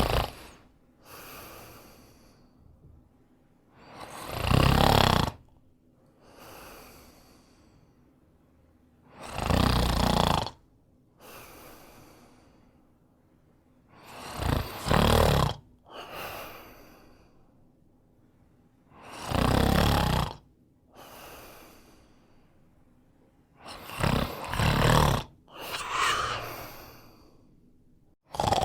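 A man snoring in a steady rhythm: a loud rasping snore on each breath in, about every five seconds, each followed by a softer breath out.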